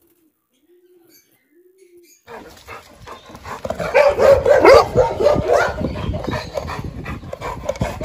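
Pigeons cooing softly three times, then from about two seconds in several dogs in the kennels barking loudly and continuously.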